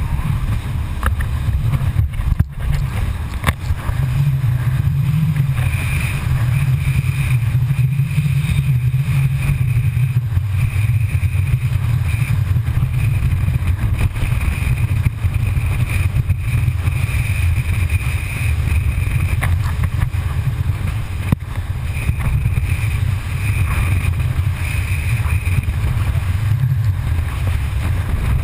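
Rigid inflatable boat running at speed: a steady, loud low rumble of the boat and water, muffled through a GoPro's waterproof housing. A few sharp knocks come about two seconds in and again about three-quarters of the way through.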